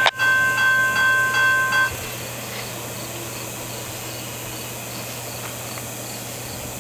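Electronic railroad crossing bell dinging about two and a half times a second, then stopping about two seconds in as the crossing gates begin to rise after the train has cleared. A steady background hum follows.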